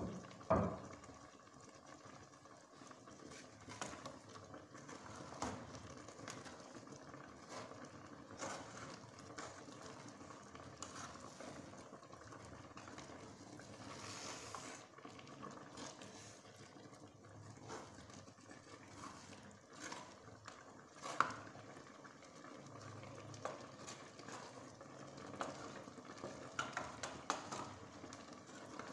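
Spatula stirring and mashing thick amala dough in an aluminium pot: faint soft scraping and squelching, with occasional sharp knocks against the pot, the loudest about half a second in and several close together near the end.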